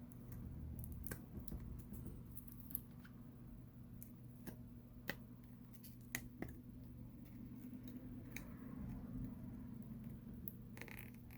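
Faint, scattered clicks and crackles of old adhesive being peeled off a Samsung Galaxy Note 9's back glass, over a low steady hum.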